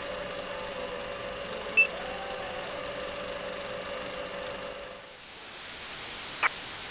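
Electronic drone over a steady hiss, with a short high beep about two seconds in. About five seconds in it gives way to a thinner hiss, with a quick high chirp near the end.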